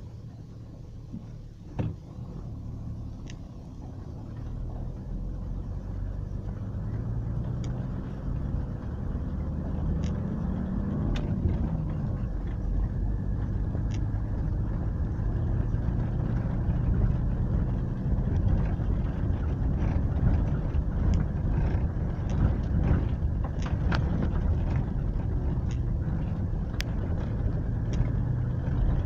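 Toyota's engine running while driving on a rough gravel road, heard from inside the cabin, with tyre and road noise and scattered short knocks and rattles from the rough surface. A sharper knock comes about two seconds in, and the engine note rises and falls briefly around the middle.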